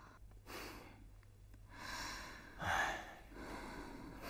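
A person breathing softly, about five audible breaths in a row.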